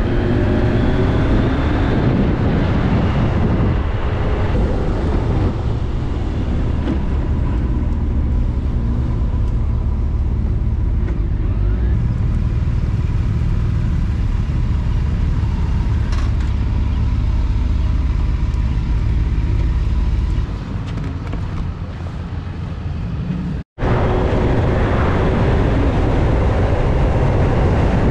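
Motorcycle engine and wind rush heard from the rider's own bike while riding, a steady low rumble and hiss. The level dips about two-thirds of the way in, then cuts out for an instant before the riding noise comes back.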